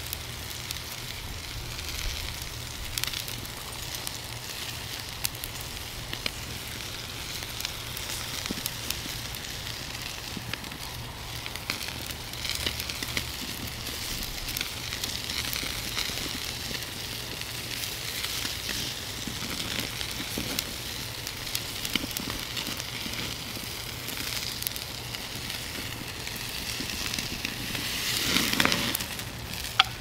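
Steak sizzling on the grate of a charcoal kettle grill, a steady hiss of fat frying over hot coals with many small pops and crackles. It grows briefly louder near the end, when the steak is lifted off the grate.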